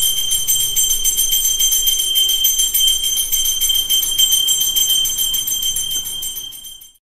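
Brass puja hand bell rung rapidly and continuously for arati, a bright metallic ringing that fades away near the end.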